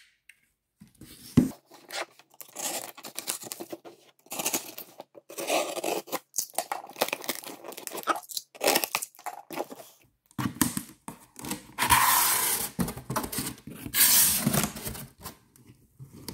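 Packing tape being torn from the seams of a cardboard shipping box, in many short, irregular tears, with longer, louder tears about twelve and fourteen seconds in. The box flaps are then pulled open.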